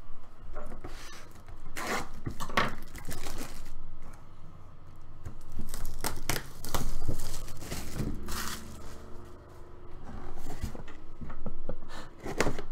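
Plastic shrink-wrap being ripped and crinkled off a cardboard box in a series of tears.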